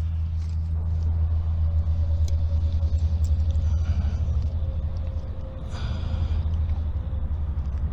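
A steady, fluttering low rumble, louder in the middle, with a faint steady hum above it for most of its length.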